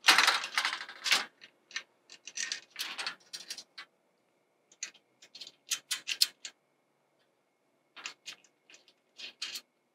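Short metallic clicks, taps and scrapes of bolts, washers and brackets being fitted by hand into a metal greenhouse frame. They come in quick clusters with short pauses between.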